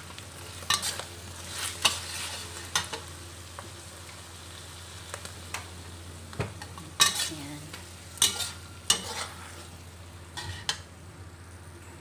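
Metal spatula scraping and turning food in a steel wok, with irregular scrapes about once a second over a low frying sizzle and a steady low hum.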